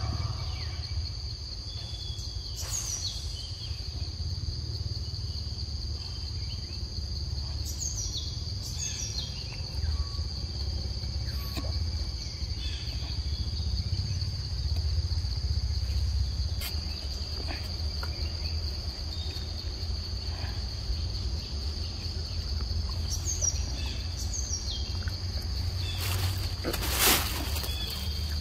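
Forest insects droning steadily on one high pitch, with short falling bird chirps here and there. A brief loud burst of noise comes near the end.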